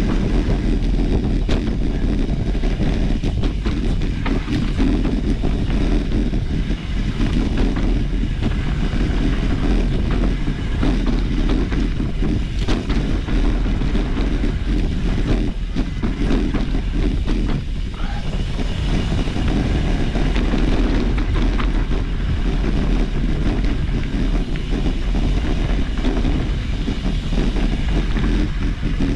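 Mountain bike being ridden along a dirt trail: steady wind noise on the microphone over a rumble of tyres on the ground, with frequent small clicks and rattles from the bike over rough terrain.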